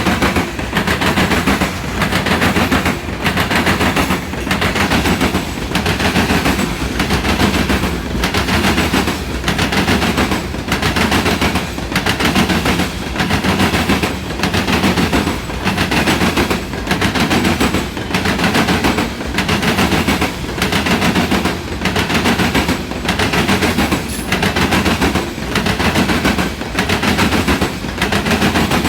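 CSX freight train of lime hopper cars rolling past, its wheels clacking over rail joints in a steady, repeating rhythm over a continuous rumble.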